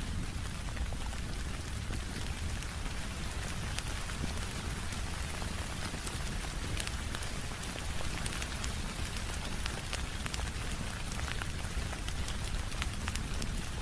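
Steady rain mixed with a crackling wood fire: a constant even hiss of rain, scattered with many short sharp pops and clicks.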